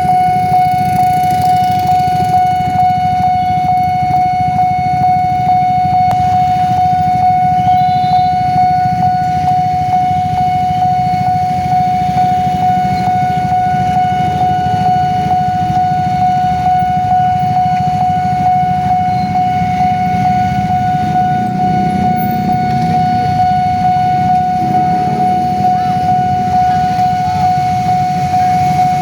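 Railway level-crossing warning siren sounding one continuous, unwavering tone, over a constant low rumble.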